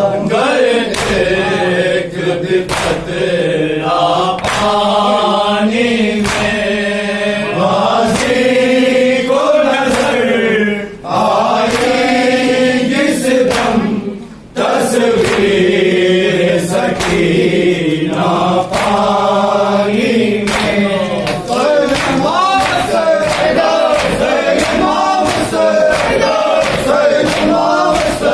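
Men chanting a noha, a Shia Muharram lament, in unison, over a steady beat of sharp hand slaps on the chest (matam). The chanting breaks off briefly twice, about a third and halfway through.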